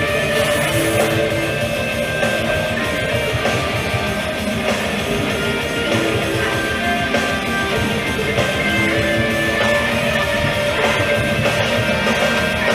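Rock music with electric guitar playing steadily.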